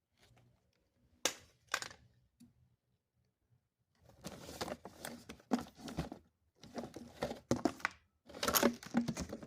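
Packaging being handled while parts are taken out of a box: two sharp knocks about a second in, then from about four seconds on a dense run of rustling and knocking.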